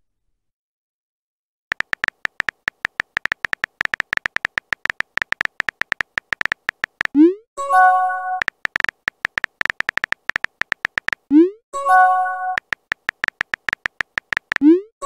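Simulated phone-keyboard typing clicks from a texting-story app, rapid and uneven, as a chat message is typed out. About seven seconds in and again about eleven seconds in, the typing stops for a rising swoop and a short chime as a message is sent. A third swoop starts right at the end.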